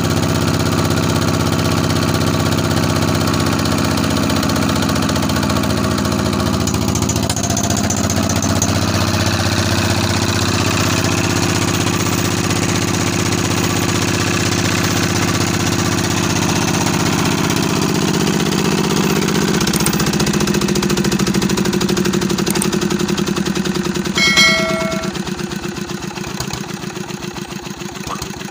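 Peter 16 HP single-cylinder diesel engine running steadily. About 20 seconds in its note changes, a short metallic ding comes a few seconds later, and then the engine slows and quietens, its beats turning uneven.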